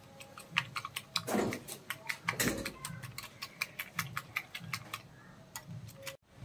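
Small metal whisk beating eggs in a glass bowl: a fast run of light clicks as the wires strike the glass, several a second, with two louder rushing noises between about one and three seconds in, the clicking thinning out near the end.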